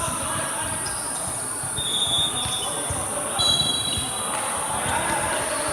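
Basketball game on an indoor court: the ball bouncing and shoes squeaking sharply on the floor, twice in the middle.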